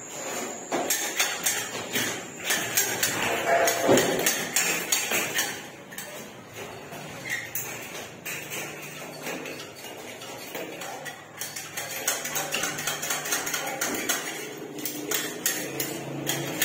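Repeated hammer blows and sharp metallic clicks as metal furring channel is fastened to a concrete wall, coming in quick runs that grow denser in the last few seconds.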